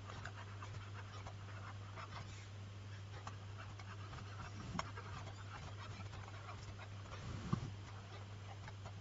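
Faint scratching and light ticks of a stylus writing on a tablet, over a steady low electrical hum.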